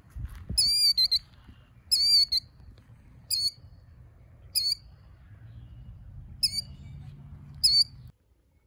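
Killdeer calling: six loud, shrill, high calls with a down-slurred note, repeated about every second. All sound stops suddenly near the end.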